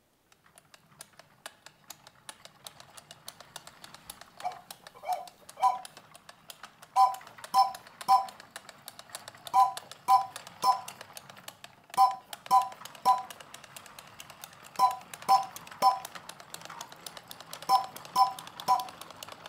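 A vintage 1973 Fisher-Price Circus Train pull toy rolling across a wood floor, with a fast clicking and rattling from its wheels. Short chiming tones come in sets of three about every two and a half seconds.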